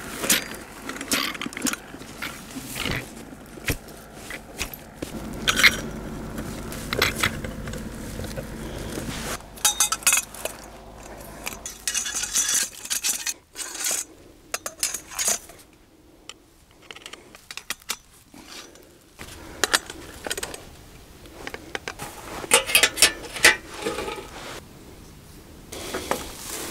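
Metal gear being handled: irregular clinks, clatters and scrapes, in bunches with quieter gaps between them, as equipment is set out and assembled.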